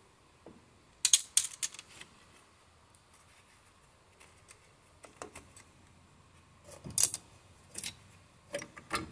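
Small metal drum brake parts being handled, clicking and clinking: a quick run of clicks about a second in, then scattered single clicks and a few more near the end.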